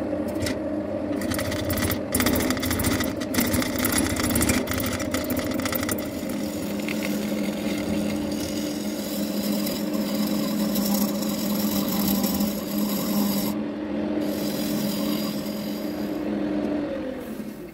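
Wood lathe spinning a wood-and-epoxy-resin vase blank while a turning tool cuts it: a steady motor hum under a scraping cutting noise, with rapid ticking in the first few seconds. The sound drops away near the end.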